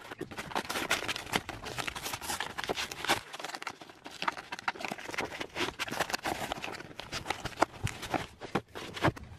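Brown kraft-paper mailer being torn and ripped open by hand: a dense, irregular run of paper crackles and rips, with the paper crinkling as a paperback book is pulled out near the end.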